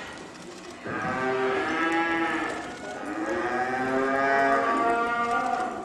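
Cattle mooing: two long bawls, the first starting about a second in and the second following almost at once.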